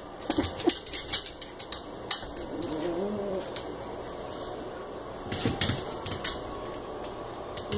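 Puppy claws clicking and scratching against a glass storm door and tile floor in quick irregular taps, with a short low pitched puppy sound about three seconds in.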